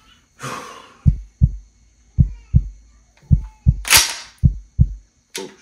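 Heartbeat sound effect: four double thuds, lub-dub, about a second apart, with a short rush of noise near the start and a louder one about four seconds in.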